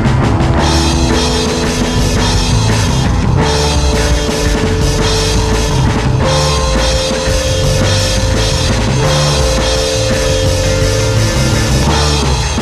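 Background rock music with a full drum kit and sustained guitar or synth notes.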